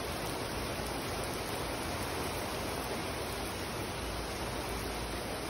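Heavy rain pouring steadily onto pavement and puddles, an even, unbroken hiss.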